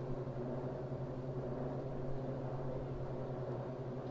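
Steady low mechanical hum of a large engine or motor running at a constant speed, with a droning tone and its overtones that hold unchanged throughout.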